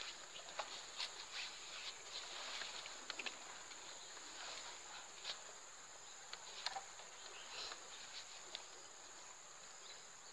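Faint, steady high-pitched drone of insects, with scattered light clicks and ticks.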